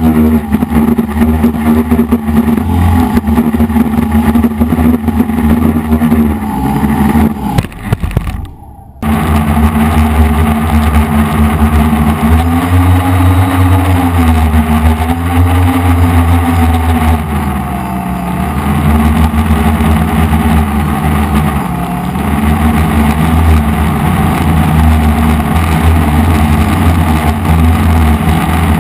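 F450 quadcopter's four brushless motors and propellers buzzing in flight, the pitch dipping and rising several times as the throttle changes. About eight seconds in the sound falls away and cuts out for about a second, then comes back just as loud.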